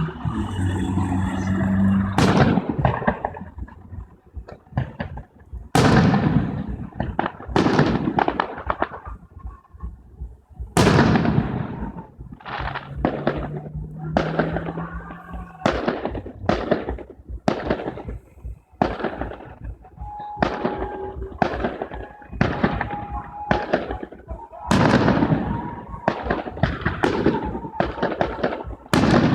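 Fireworks display: shells bursting one after another, each bang trailing off in a fading crackle, about one or two a second, with a few heavier booms among them.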